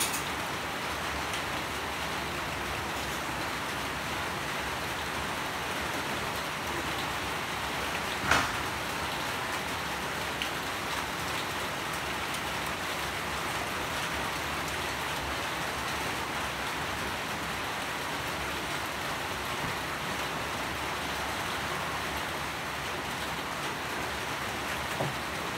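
Steady rain falling, an even hiss of drops. About eight seconds in there is a single sharp tap, louder than the rain, with a couple of fainter ticks later.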